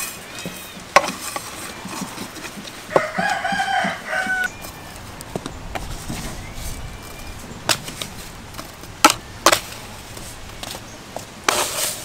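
A rooster crows once, a drawn-out call about three seconds in. Several sharp knocks come before and after it.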